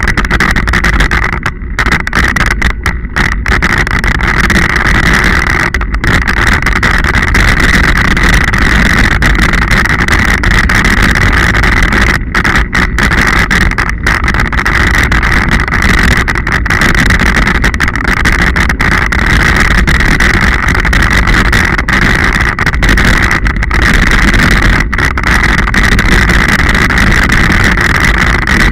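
Ride noise from a Scott Genius mountain bike on a muddy dirt track, picked up by a camera on the bike: a loud, steady rush of wind on the microphone over the rumble of tyres on rough ground. The sound cuts out for an instant several times.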